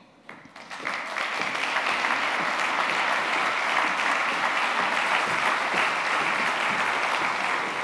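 Audience applauding, building up within the first second and then holding steady.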